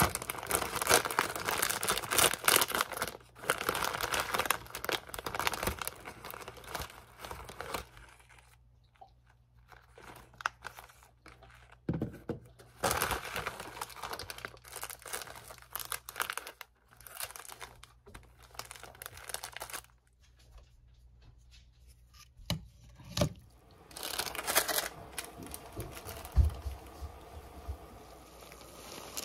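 Plastic instant-noodle wrapper of a Nongshim Chapagetti packet being torn open and crinkled, then smaller seasoning sachets rustling as they are handled. The rustling comes in spells, with quieter stretches about a third of the way in and again past two-thirds, and a few light knocks.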